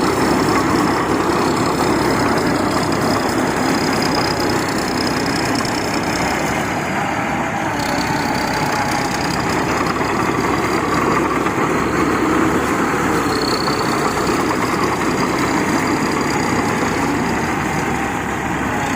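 Diesel engine of a rice combine harvester running steadily while it unloads grain into a truck, with a faint wavering high whine over the engine noise.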